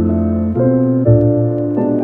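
Background music: sustained keyboard chords that change about every half second.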